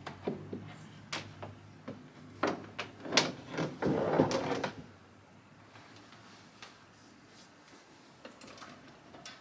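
Handling noises of a Keurig K-Slim coffee maker and its power cord being arranged on a cabinet top: scattered clicks and knocks, with a louder cluster of knocking and rustling from about two and a half to five seconds in, then a few light taps.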